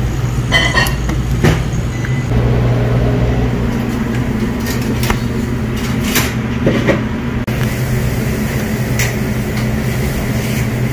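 Small R134a refrigeration compressor of a reach-in prep table running with a steady low hum, with a few short clicks and knocks over it.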